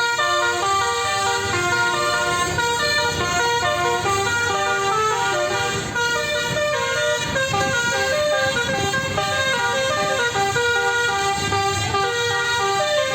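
Telolet basuri multi-tone horn on an angkot minibus playing a continuous melody, its tones stepping quickly from note to note, over a low rumble.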